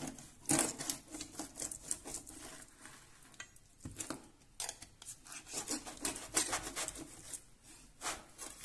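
Chef's knife sawing through a moray eel's neck on a plastic cutting board: irregular scraping strokes with sharp clicks of steel blade against the board and a second knife.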